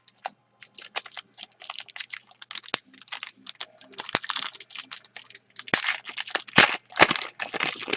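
Foil trading-card pack being torn open and handled: a quick run of crinkling and rustling with small sharp clicks, getting busier in the second half.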